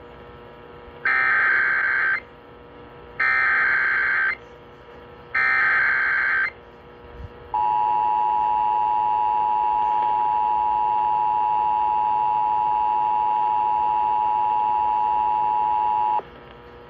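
Emergency Alert System activation over AM radio. Three bursts of about a second each of screeching SAME digital header tones, encoding a severe thunderstorm warning, are followed by the steady two-tone EAS attention signal (853 and 960 Hz) held for about eight and a half seconds before cutting off.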